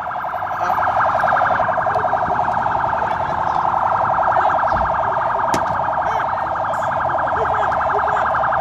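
An electronic alarm sounding steadily, with a fast, even warble.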